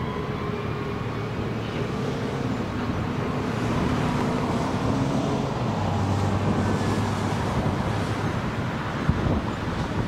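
Vehicle engines running steadily over a wash of outdoor noise, a lower engine note coming in about halfway through. A single sharp knock near the end.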